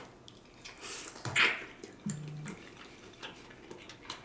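Wet, squishy handling of pressure-cooked smoked turkey legs, with small scattered clicks and a louder rustling burst about a second and a half in, and a brief low hum shortly after.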